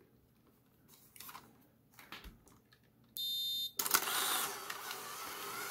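A Polaroid Spectra Pro instant camera takes a shot: a brief buzzing tone about three seconds in, then the film-ejection motor starts and runs steadily, driving the print out through the rollers. The motor is pretty weak because the battery is weak.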